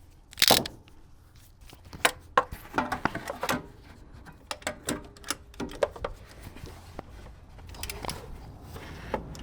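Irregular metallic clicks and knocks of hand tools at work on a van engine, with one loud knock about half a second in: the engine is being turned over by hand to check that the new dual mass flywheel clears the bell housing.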